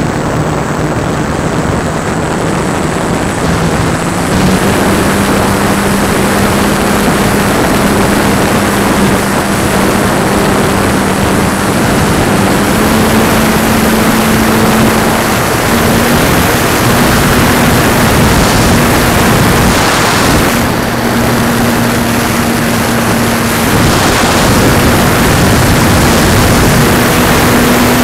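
Onboard sound of a World Models Thermal Rider EP electric RC plane in flight: its electric motor and propeller hum steadily under heavy rushing wind noise. The hum steps up in pitch about four seconds in and again about thirteen seconds in as the throttle is raised, dips briefly, then holds.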